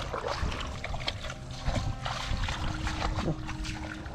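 Water sloshing and splashing, with scattered small clicks and knocks over a steady low rumble.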